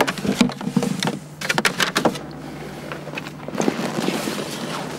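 Knocks and bumps of a plastic fuel tank and gear being packed into a car boot, then rustling of a fabric bag being pushed in around them near the end.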